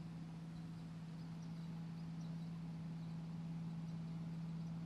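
A steady low hum holding one unchanging pitch, over a faint even hiss.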